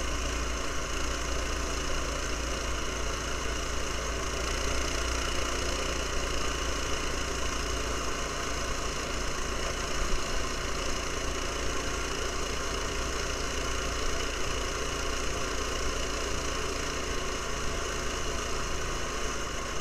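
A small off-road vehicle engine running at a steady, even speed, with ride noise underneath.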